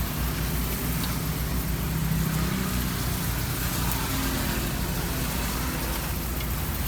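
Road traffic: a motor vehicle engine running close by over a steady hum of traffic noise.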